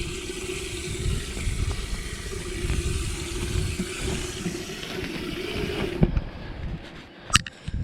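Steady rushing water-and-rain noise with a low, steady hum underneath. It cuts off abruptly about six seconds in, followed by a single sharp click.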